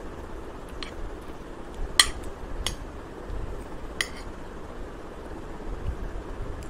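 Metal spoon clinking against a ceramic plate while scooping fried rice: four sharp clinks, the loudest about two seconds in, over a steady background hiss.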